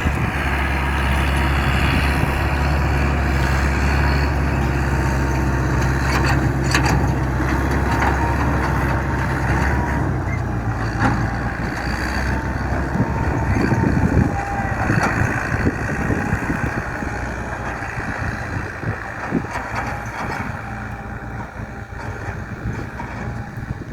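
Heavy diesel engine of farm machinery pulling up a steep slope, a strong steady drone for about ten seconds that then roughens and slowly fades away.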